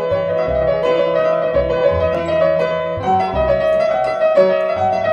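Toy electronic piano playing a simple tune in long held keyboard notes, the notes changing about three seconds in.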